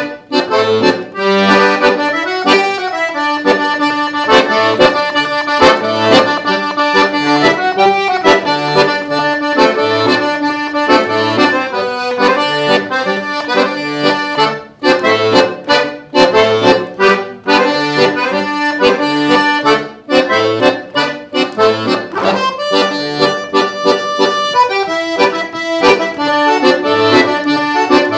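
Todeschini piano accordion played solo: a traditional gaúcho tune, the right-hand melody over steady alternating bass notes and chords from the left-hand bass buttons.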